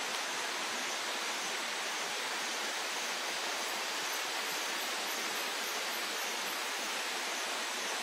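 Steady rush of falling water from a waterfall, an even hiss with no breaks.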